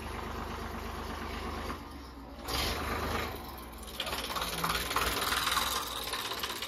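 Farm tractor's diesel engine running with an even clattering beat, getting louder from about four seconds in.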